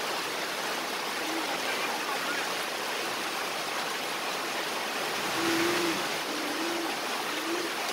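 Steady hiss of light rain falling, with faint talk in the second half.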